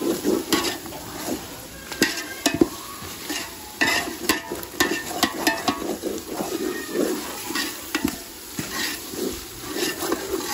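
Perforated metal ladle scraping and knocking irregularly against a metal pot while stirring an onion-tomato masala frying in oil, with a sizzle underneath.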